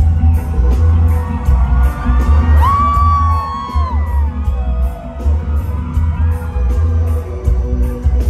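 A live reggae band playing over a concert PA, with a deep bass and a steady beat. About three seconds in, a loud high whoop is held for about a second, then drops away.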